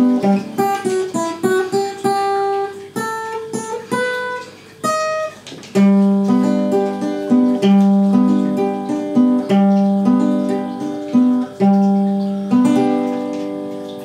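Acoustic guitar played alone as the closing bars of a song: strummed chords, a short run of single picked notes about three to five seconds in, then more strummed chords, the last one left to ring and fade out near the end.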